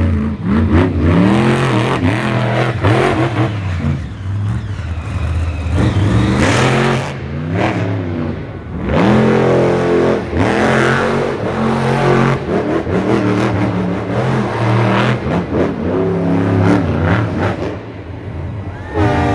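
Monster truck engine revving hard over and over during a freestyle run, its pitch climbing and falling every second or two, with a few sharp knocks between the revs.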